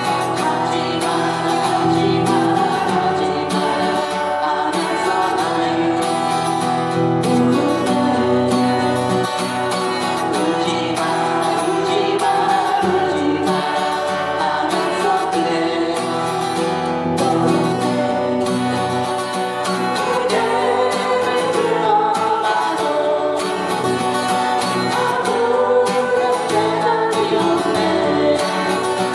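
Capoed steel-string acoustic guitar played as accompaniment to a singer performing a Korean pop ballad, with no breaks.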